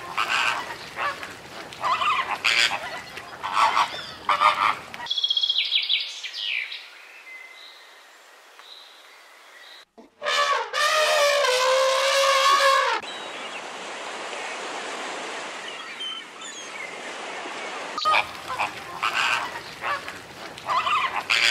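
Canada goose honking, a rapid series of calls through the first five seconds and again near the end. In the middle comes a loud, wavering elephant call of about three seconds, followed by a steady hiss.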